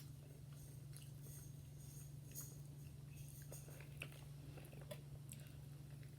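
Faint close-up chewing of fried chicken, with scattered small mouth clicks and smacks over a steady low hum.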